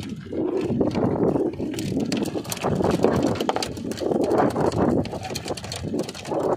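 Wind buffeting the microphone on open water, a loud, uneven rushing that swells and drops, with scattered small clicks and knocks from handling the fishing line and catch.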